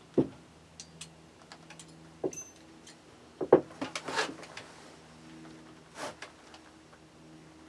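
Scattered small metallic clicks and a few light knocks from a rifle's bolt assembly being handled and taken apart.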